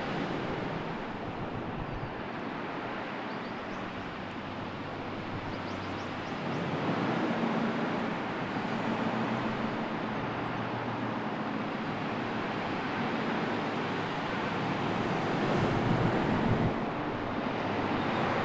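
Wind blowing at the sea with surf washing, a steady rushing noise that swells and eases, and some wind buffeting on the microphone.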